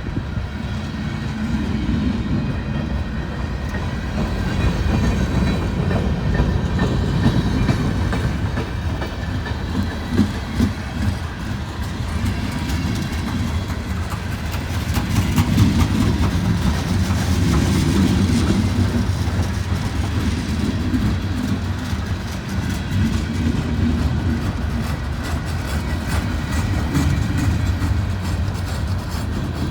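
Norfolk Southern mixed freight train's boxcars rolling past close by, with a steady rumble and wheels clacking over rail joints. It grows louder for a few seconds about halfway through.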